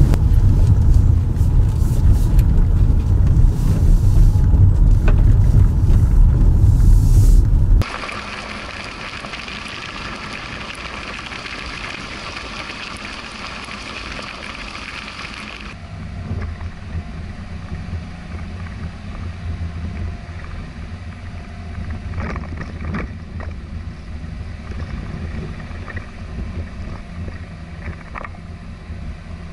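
Rolls-Royce Cullinan SUV driving on a gravel and dirt fire road: a heavy low rumble for the first eight seconds, then the hiss of tyres on gravel, then from about sixteen seconds in a lower road rumble with wind and scattered faint clicks of stones. The sound changes abruptly twice.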